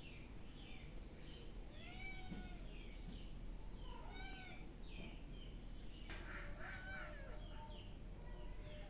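Domestic cat meowing three times, about two seconds apart, the last meow longer and louder. Small birds chirp repeatedly in the background.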